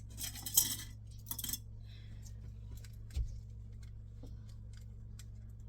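Small hard objects clicking and rattling as they are handled, with a few brief rustles early on and one dull knock about three seconds in.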